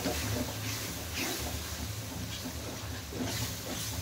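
Ladle stirring and scraping a tadka of mustard-green saag frying in desi ghee in a pan, with a steady sizzle and a scrape about once a second.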